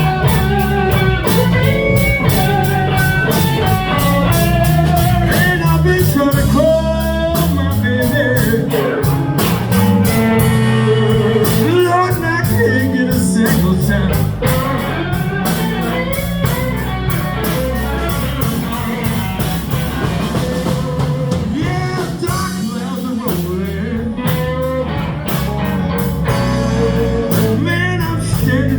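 Live blues band playing a slow blues, an electric guitar lead bending notes over bass and a steady drum beat.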